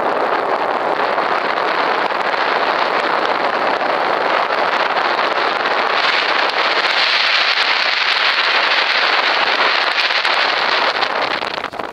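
Wind blowing across the microphone: a loud, steady rushing noise that drops away sharply near the end.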